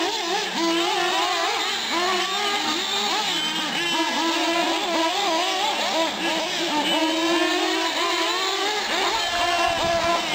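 Several 1/8-scale nitro RC off-road trucks and buggies racing, their small glow-fuel engines revving up and down in overlapping whines as they accelerate and brake around the track.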